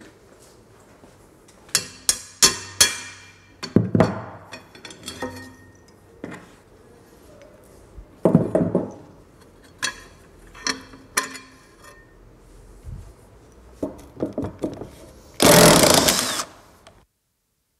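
Tools clinking and clanking against the metal parts of a Peugeot 205 GTI rear beam axle as it is dismantled: a run of sharp metallic strikes, some of them ringing. Near the end comes a loud burst of noise lasting about a second.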